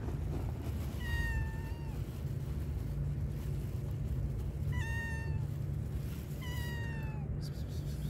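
Tabby stray cat meowing three times, each meow under a second long and dropping in pitch at the end: a hungry cat begging for food. A steady low rumble runs underneath.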